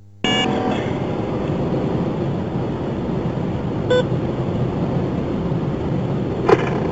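Steady road and engine noise from a moving police car, starting abruptly a quarter second in, with a short electronic beep about four seconds in.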